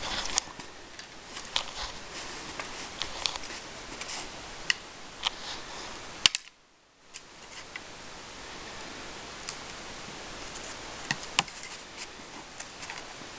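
Gear and equipment handling in snow: scattered sharp clicks and rattles over a steady hiss while a man hauls a gear sled, kneels and shoulders a rifle. The sound cuts out briefly just after six seconds in, and two sharper clicks come close together near the end.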